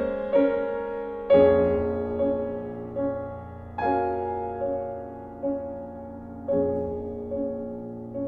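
Slow piano music: a full chord struck about every two and a half seconds, with lighter single notes between, each left to ring and fade.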